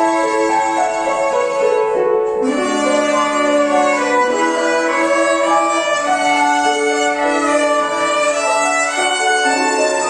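Ensemble of violins playing a melody, mixing held bowed notes with passages of short repeated notes.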